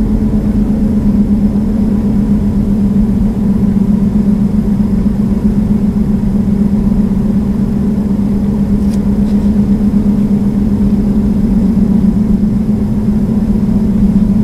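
Car driving at a steady speed, heard from inside the cabin: an even drone of engine and tyres on smooth pavement.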